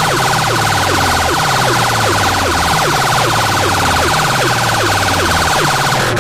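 Siren-style effect from a DJ track played very loud on a sound system: a rapidly pulsing high wail with short falling zaps about three times a second over a deep bass line, before the beat drops in.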